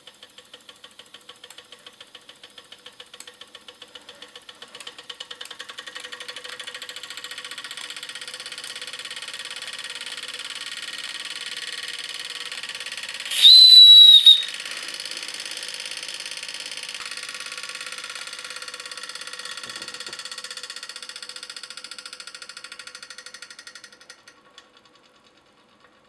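Bing toy steam engine of about 1895 running, with a fast, even puffing of exhaust steam that grows louder a few seconds in. Just past the middle a shrill steam whistle blows once for about a second. The running dies away near the end.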